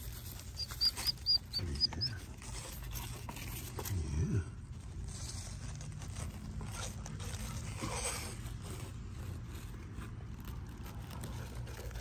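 A dog sniffing and rustling through dry straw mulch in a garden bed, with a quick run of short high chirps in the first two seconds.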